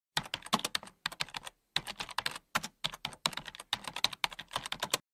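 Typing on a keyboard: quick runs of clicking keystrokes broken by short pauses, about five runs in all.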